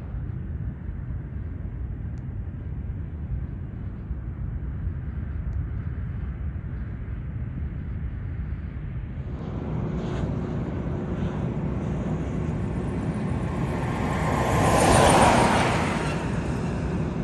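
Steady low rumble, then from about ten seconds in a vehicle approaches and passes close by, swelling to its loudest for a second or two near the end and fading again.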